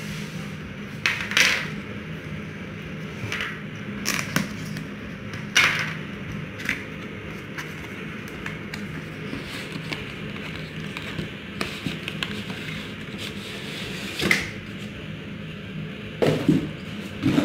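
Cardboard packaging being opened: a handful of short, sharp scrapes and rustles as a knife works at the box and the white outer sleeve is slid off the inner box, over a steady low hum.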